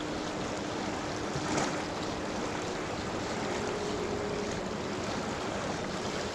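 Swift river current rushing steadily over a riffle, with a brief knock about one and a half seconds in.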